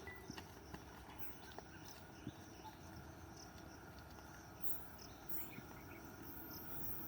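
Faint outdoor ambience with insects chirping, including a few short high-pitched bursts in the second half.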